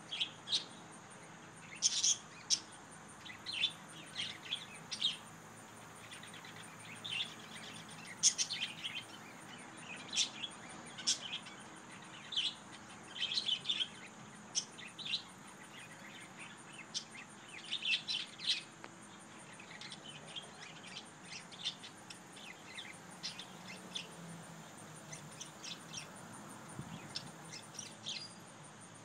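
Small birds chirping in short, high calls, several a second in places, thinning out toward the end, over a faint steady low hum.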